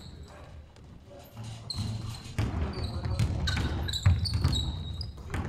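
A basketball bouncing on a sports-hall floor, with short sneaker squeaks on the court. The first second is quieter, and the bounces and squeaks come thick from about a second and a half in.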